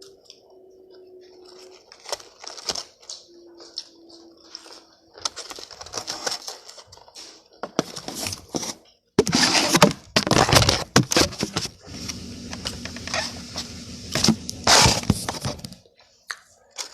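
Bags and takeout food packaging being handled and rummaged through: irregular rustling and crinkling with small knocks and clicks, loudest in a long burst about nine seconds in and again near fifteen seconds.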